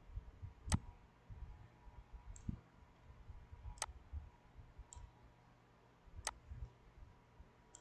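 Computer mouse clicking: three sharp clicks a couple of seconds apart, with fainter clicks between them.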